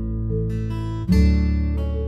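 Background music: acoustic guitar strumming chords, with a new chord struck about a second in.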